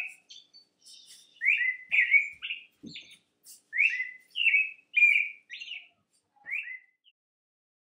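American robin singing: groups of short, clear, slurred whistled notes with brief pauses between them, and faint high thin notes in between.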